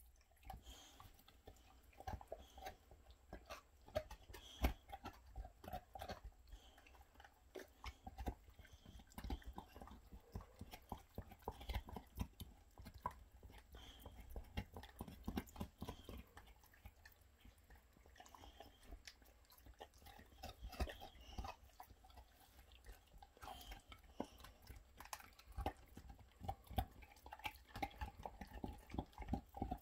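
Two boxer dogs gnawing on chew bones: irregular crunching and clicking of teeth on bone, with short pauses.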